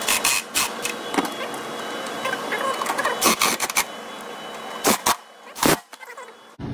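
Cordless impact driver driving the welder's top-cover screws back in, in several short hammering bursts with sharp clicks between them.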